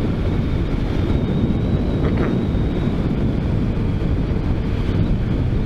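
Steady wind rush on the microphone from riding a 2014 Honda Grom motorcycle, with its engine running underneath.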